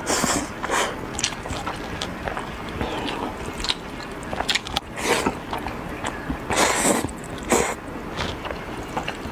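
A person eating noodles up close to the microphone, chewing with wet mouth sounds, broken by several sharp slurps. The longest slurp comes about two-thirds of the way through.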